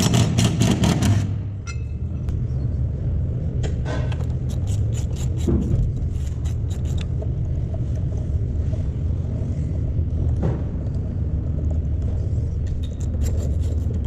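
Cordless power tool loosening the bolts of a rear transmission mount crossmember, running in short rattling bursts: a long one at the start, more in the middle and near the end. A steady low rumble sits under it throughout.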